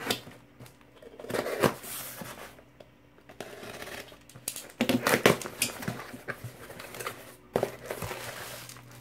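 Packaging crinkling and rustling as a parcel is unpacked by hand, in irregular bursts with a few sharper crackles.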